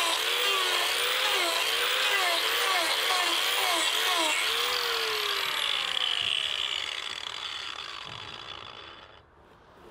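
Angle grinder with a wood-carving disc grinding out the hollow of a log, its motor pitch dipping and recovering as the disc bites into the wood. About five seconds in it is switched off and winds down, its pitch falling until it stops near the end.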